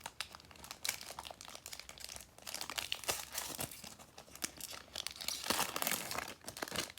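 Foil wrapper of a Pokémon card booster pack being torn open and crinkled in the hands, a dense irregular crackling.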